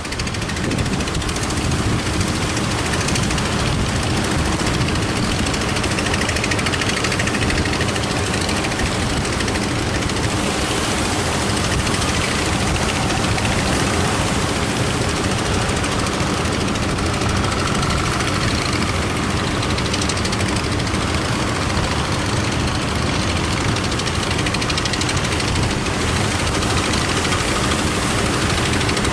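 Fishing boat engine running steadily with a low knocking beat, under a loud wash of wind and surf.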